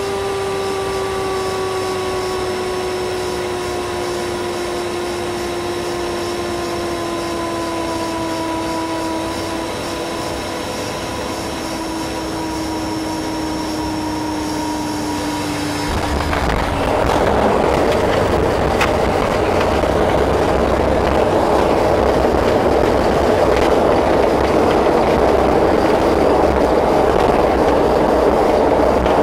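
Cabin sound of an ATR 42-300 turboprop landing: a steady propeller drone whose pitch sinks slowly as power comes back on short final. About sixteen seconds in, once the aircraft is on the runway, it jumps to a louder, rougher rushing noise as the propellers brake the aircraft and the wheels roll out.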